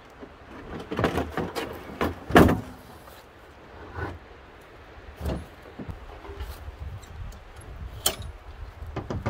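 A series of knocks and clunks, the loudest about two and a half seconds in, with a few more spaced out later, over a steady low rumble.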